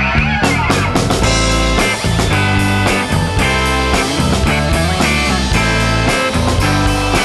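Background music with electric guitar and drums, a rock-style backing track.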